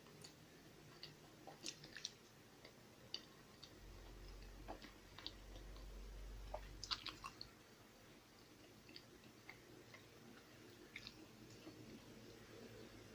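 Faint chewing of food close to the microphone, with scattered small mouth clicks and smacks.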